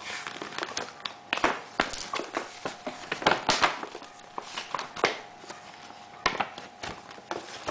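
Paper rustling and crinkling as a small folded instruction manual is handled and unfolded by hand, in irregular crackles and flaps, busiest in the first half.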